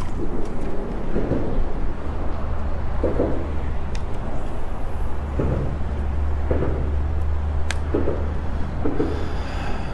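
Steady wind rumble on the microphone, with water lapping and knocking against the boat's hull at irregular intervals and two sharp clicks.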